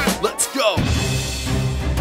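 Background music with a steady beat, with swooping glides in pitch during the first second.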